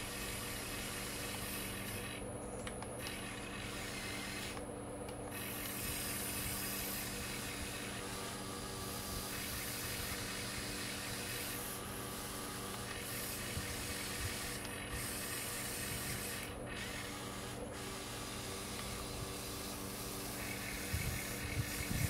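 The small electric motors and gearboxes of a Huina 1580 radio-controlled excavator whirring steadily as it is worked. The high hiss in the sound cuts out briefly several times as functions stop and start.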